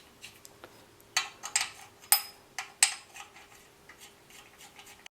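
Loose metal bolts and hand tools clinking and clicking as they are handled, a few sharp irregular clinks clustered in the first half, over a faint steady hum.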